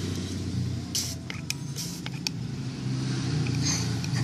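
Perfume being added from its bottle into a bowl of clear glue: a few short clicks and hisses about one to two seconds in, over a steady low hum.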